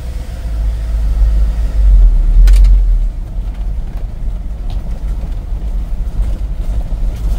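Low rumble of a camper van driving slowly, heard from inside the cab: engine and road noise, swelling about two seconds in, with a sharp click about two and a half seconds in.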